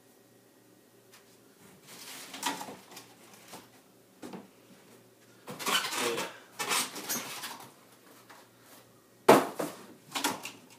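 Styrofoam packing blocks and a cardboard box being shifted and handled: bursts of scraping and rubbing starting about two seconds in, then a sharp knock about nine seconds in, the loudest sound, and a smaller one just after.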